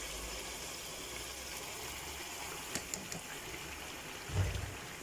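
Soft boiled eggplant pieces tipped from a plastic colander into a pot of onions and peppers frying in oil: a quiet steady hiss, two light clicks about three seconds in, and a dull bump near the end.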